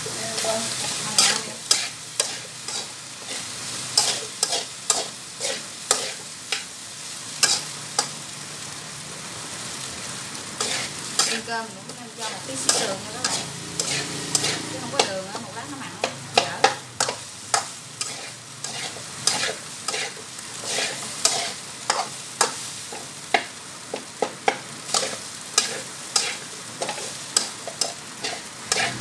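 A metal spatula scraping and clinking irregularly against a steel wok as fried rice is stir-fried, over a steady sizzle of frying.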